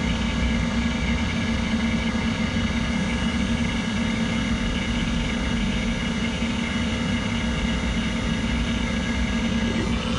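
Cordless 4 CFM refrigeration vacuum pump running steadily with its gas ballast open, pulling a rooftop unit's refrigerant system down into vacuum. It gives an even, unchanging drone with a strong low hum.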